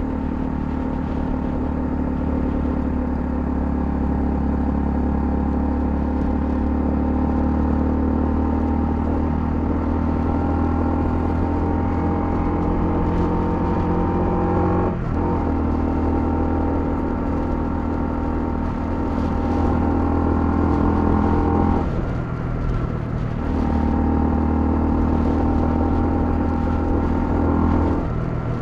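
Honda CL250's single-cylinder engine running at a steady cruising pace under way. The engine note cuts out briefly about halfway through, drops away for about a second and a half later on, then returns, and changes again near the end.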